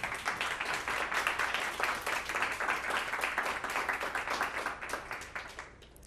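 Audience applauding, starting abruptly and tapering off near the end.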